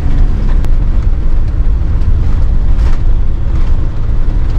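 Steady low rumble of a motorhome's engine and road noise heard from inside the cab while driving along.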